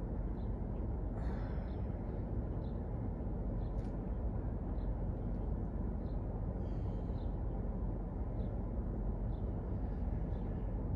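Steady low rumble of room background noise, with a few faint short high chirps scattered through it.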